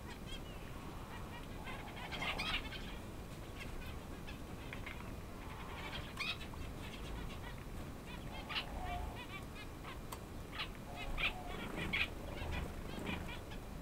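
Male king quail (Chinese painted quail) foraging: pecking and scratching at sand and food, with short soft peeps. The louder bursts come about two and six seconds in, and several more between about eleven and thirteen seconds in.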